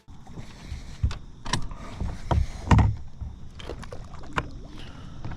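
Irregular knocks and thumps from people moving about in a fishing boat, several sharp, with heavy low thuds around two to three seconds in.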